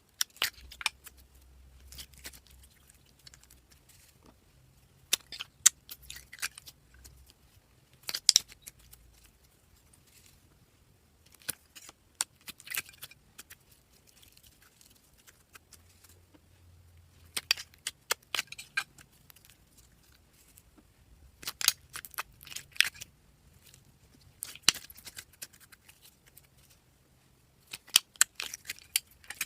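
Slime being mixed and squeezed by hand, giving short runs of sticky clicks and pops every few seconds with quiet gaps between.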